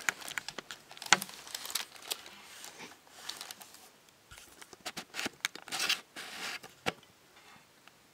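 Handling noise: scattered light clicks and rustling as a Lego Technic truck is handled and the camera brushes against clothing, busiest about five to six and a half seconds in. No motor is running.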